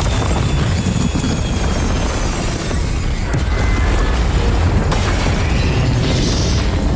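Designed sound for a giant spacecraft crashing: a heavy continuous low rumble with booms and grinding, faint high metallic whines, mixed with orchestral score.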